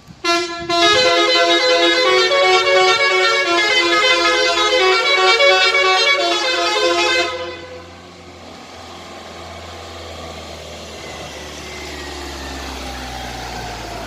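A musical horn on a van plays a tune of stepped notes for about seven seconds, then stops. After that the van's engine runs low and steady as it drives up.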